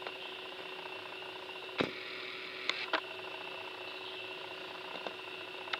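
Steady machine hum with a couple of fixed tones, broken by a few sharp clicks: one about two seconds in, a quick pair about a second later, and one near the end.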